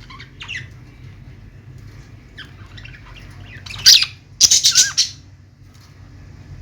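Small pet parrots chirping softly, then loud, harsh squawks about four seconds in that last around a second.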